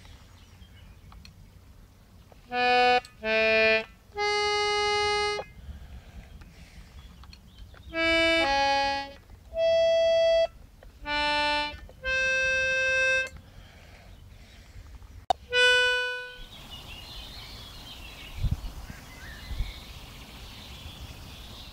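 Button accordion sounding about nine separate notes and chords, each held briefly with pauses between them. About three-quarters of the way in the playing stops, leaving an outdoor background with birds chirping.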